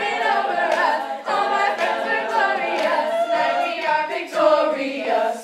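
Women's a cappella group singing, several voices in harmony with no instruments; it stops suddenly at the end.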